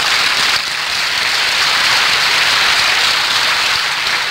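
Theatre audience applauding, a steady, even clapping.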